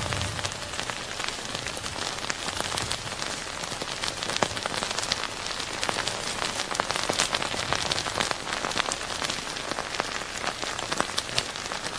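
Steady hiss with a dense, irregular patter of small crackles and pops.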